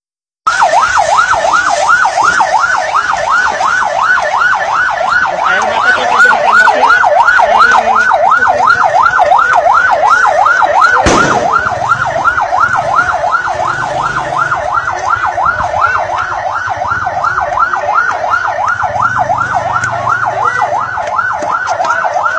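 Electronic siren in a fast yelp, its pitch sweeping up and down about three times a second, with one sharp bang about halfway through.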